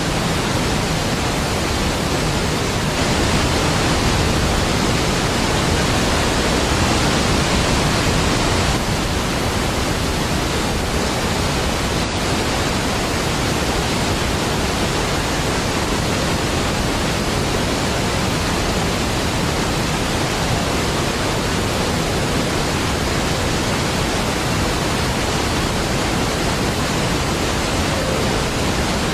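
A large waterfall making a deep, steady rushing roar of falling water, even and unbroken, swelling slightly for a few seconds near the start.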